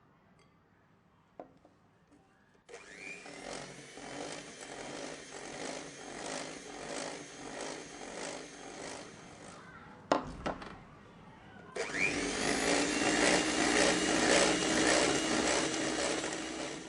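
Electric hand mixer beating egg into creamed butter and sugar. It starts up with a rising whine and runs for about seven seconds with a regular pulsing, about one pulse a second, as the beaters go round the bowl. It stops, there is a knock, then it starts again louder for about five seconds.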